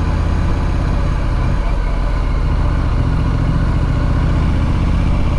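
Triumph Street Scrambler's 900 cc parallel-twin engine running steadily on the move, a loud low engine note.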